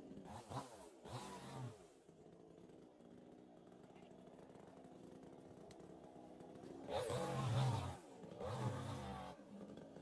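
Chainsaw engine idling and being revved: two short blips in the first two seconds, a steady idle, then two longer revs near the end, with pitch rising and falling.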